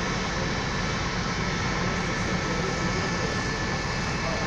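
Steady rumble and rush of a train in motion, heard from on board, with a faint high steady whine above it.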